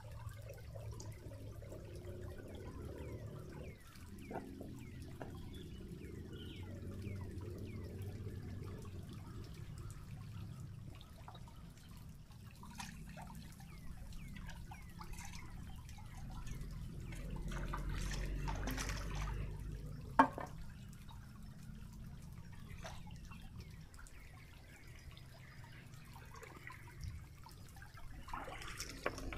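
Shallow rocky stream water sloshing and trickling, with small splashes and scattered clicks, and one sharp click about two-thirds of the way through.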